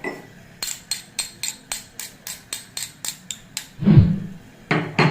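Kitchen utensils knocking: a quick run of sharp knocks, about five a second, for about three seconds, then a dull heavy thump about four seconds in and another loud knock near the end.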